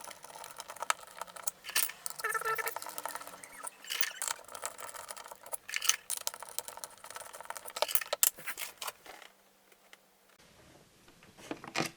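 Small metal hand tools and screws clinking and rattling, with a run of sharp clicks, as a pump top is worked loose by hand. The handling stops for about a second near the end.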